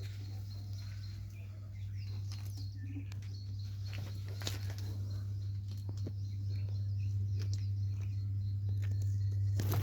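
Farmyard ambience: a steady low hum with scattered short bird chirps and light clicks over it.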